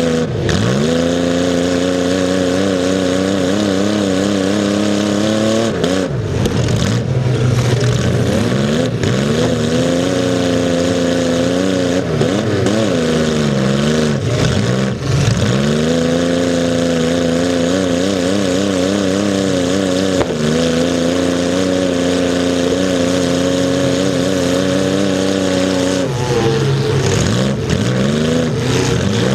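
Demolition derby car's engine, heard close up from on board, running hard and revving up and down as the car drives. Its pitch drops and climbs again several times.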